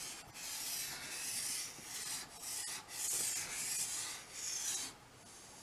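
White chalk scraping on a green chalkboard as a word is written in cursive: a string of scratchy strokes with short breaks between them, stopping about five seconds in.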